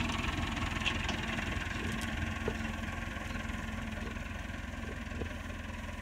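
Farm tractor engine running steadily while pulling a crimper-roller through cereal rye, growing slowly fainter as it moves away.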